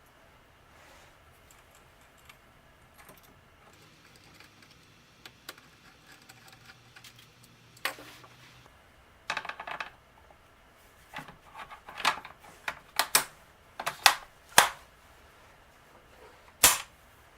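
Sharp metallic clicks and clinks, as of small metal parts and tools being handled. A few faint ones come first, then a run of loud separate clicks starts about halfway in, with the loudest near the end.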